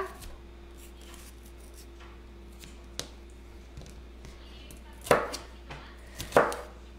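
Chef's knife cutting a yellow bell pepper on a plastic cutting board: a few separate cuts, a sharp tick about three seconds in and two louder crunching strokes near the end.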